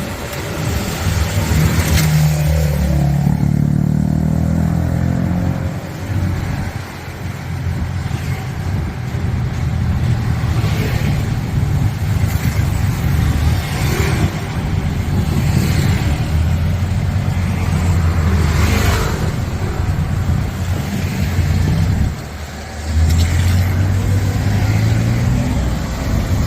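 Motor vehicle engine in street traffic, accelerating with its pitch climbing a few seconds in, running steadily, dropping away briefly, then climbing again near the end.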